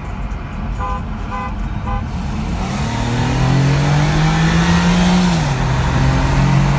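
Car engine accelerating hard, its pitch climbing steadily and then dropping at a gear change about five and a half seconds in, heard from inside a car's cabin. Three short beeps come first, about a second in.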